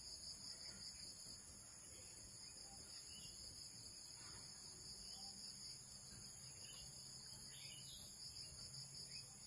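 Faint, steady, high-pitched chorus of insects droning without a break.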